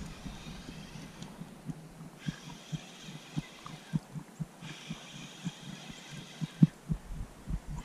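Spinning reel cranked on a lure retrieve: soft low thumps at about three a second, with a higher whirring in two stretches of about two seconds.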